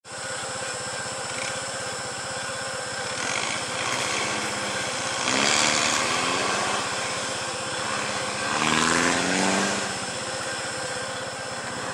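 Vehicle engine idling steadily with a fast, even low throb. It swells louder twice, rising a little in pitch, about five and a half and nine seconds in.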